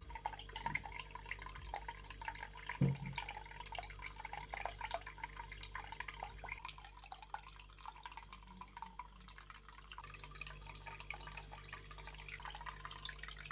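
Small homemade tabletop water fountain running: a faint, continuous trickling and dripping of water, over a steady low hum. A soft knock sounds a little under three seconds in.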